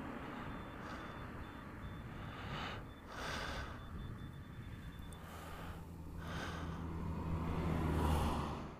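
Wind buffeting the microphone in uneven gusts. About halfway through, a low steady engine hum comes in and grows louder.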